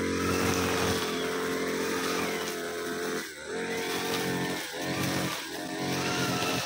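Backpack brushcutter engine running at high revs while cutting roadside grass, the revs dropping briefly three times as the throttle is eased off between sweeps.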